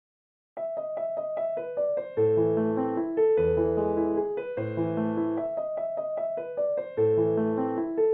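Background music, a piano tune: silence for about half a second, then a run of quick repeated notes, with low bass notes joining about two seconds in.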